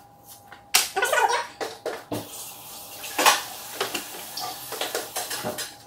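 Dry onion skins crackling and rustling as an onion is peeled by hand, with irregular sharp crinkles.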